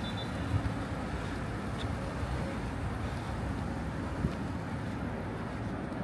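Steady rushing roar of a fog cannon truck's big fan blowing mist, unbroken throughout, with a couple of faint brief ticks.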